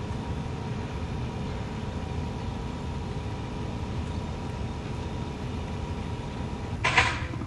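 Steady low rumbling outdoor background noise with a faint steady hum, broken near the end by one sharp knock.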